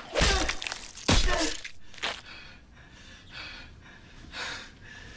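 Two loud crashing blows with strained cries in the first second and a half as a struggle ends. Then a man gasps heavily for breath, about once a second.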